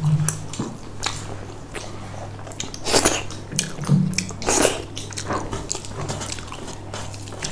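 Close-miked chewing of a mouthful of rice and curry eaten by hand, with irregular wet smacks and clicks. A steady low hum runs underneath.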